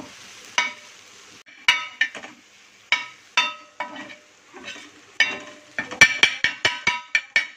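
Steel spatula scraping and tapping on a dosa tawa while egg and onion sizzle on it. The taps ring and come singly at first, then in a fast run of about ten near the end as the egg is broken up.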